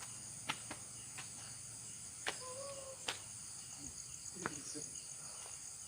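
Night crickets or other insects chirping steadily in a high, pulsing chorus, with a few sharp clicks spaced through it.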